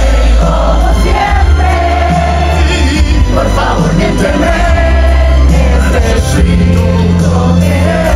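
Loud pop music, a voice singing a melody over a heavy, steady bass line.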